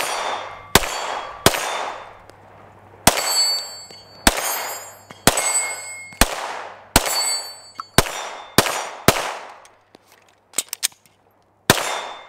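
Shadow Systems MR920 Elite 9mm pistol firing about a dozen shots at an irregular pace, each a sharp crack with a trailing echo. A few shots are followed by a brief metallic ring. Near the end there is a short lull with a few faint clicks before another shot.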